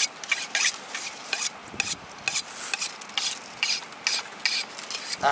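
Knife blade being honed on a honing steel: quick metal-on-metal scraping strokes, about four a second.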